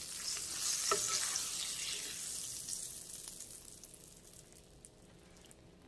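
Oil sizzling in a frying pan around breaded fish fillets as they finish frying, with a light clink of the spatula against the pan about a second in. The sizzle fades away over the last few seconds.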